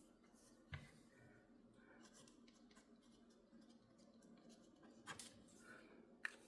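Near silence with faint scratching and a few light taps of a pen signing a watercolour painting on paper.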